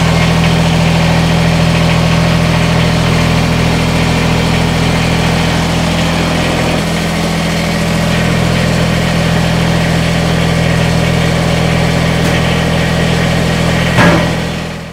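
Kubota BX25D compact tractor's three-cylinder diesel engine running steadily at idle, its note shifting slightly about halfway through. A single sharp knock sounds about a second before the end.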